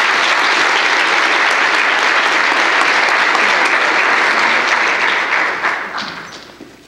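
Audience applauding steadily, then dying away about six seconds in.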